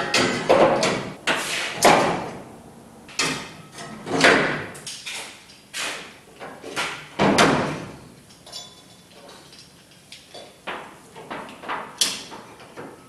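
4 1/2" angle grinders being set one after another into a plasma-cut steel wall rack: a string of irregular knocks and clunks of the grinder bodies against the steel, some with a short ring.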